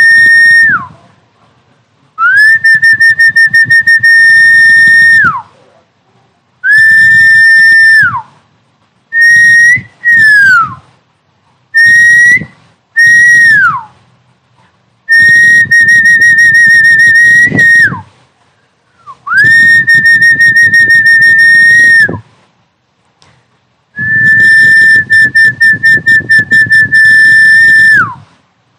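Recorded snakehead fish-calling sound: a loud, distorted high whistle held steady for half a second to four seconds, then dropping in pitch, repeated about ten times with short silent gaps, with a low buzz under each whistle. Some whistles are short and flick up at the end; the last one pulses quickly.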